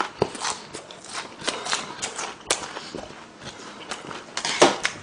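Chewing a large mouthful of food close to the microphone: irregular soft crunches and wet mouth clicks.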